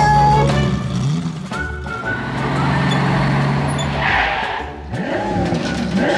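Vehicle engine sound effect for toy trucks: a steady engine drone, with a brief hiss of noise about four seconds in.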